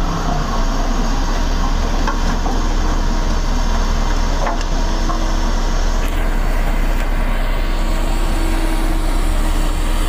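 Single-drum road rollers, a Sakai SV525 among them, running steadily on their diesel engines. The sound is strongest in the low end.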